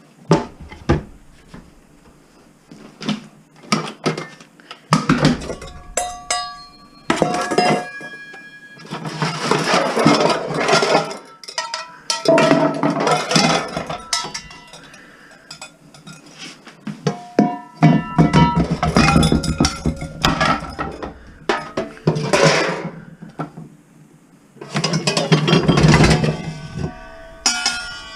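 Metal pots, pans and other household items clanking and rattling as they are rummaged through. Several strikes ring on briefly with a clear metallic tone, and there are longer spells of jumbled clatter.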